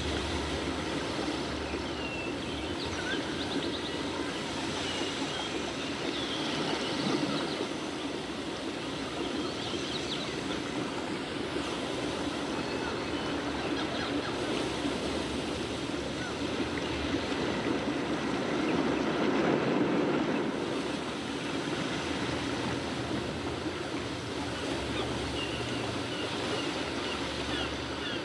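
Steady rushing noise like flowing water or surf, swelling a little about seven seconds in and again around twenty seconds.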